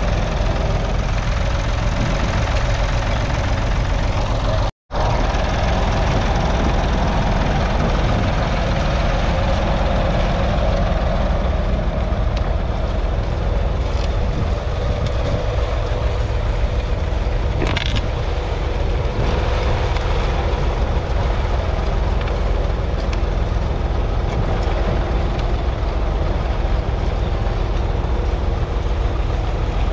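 David Brown 770's 2.4-litre three-cylinder diesel engine running steadily under load as the tractor pulls a two-furrow mounted plough through the soil. The sound cuts out for a moment about five seconds in.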